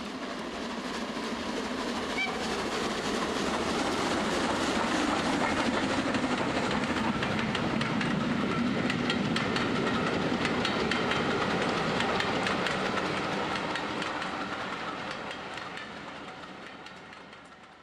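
A train running along rails with a quick clickety-clack of wheels over rail joints, growing louder over the first few seconds and fading away towards the end.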